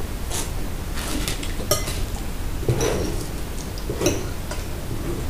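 Forks and knives clinking and scraping against plates and cardboard pizza boxes while people eat, a scatter of short light clicks with the most distinct ones about three and four seconds in.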